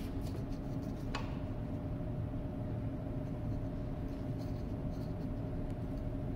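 A steady background hum, with a few light clicks and knocks as the metal fuel injection pump body is turned and set in the bench vise, near the start and again after about four seconds.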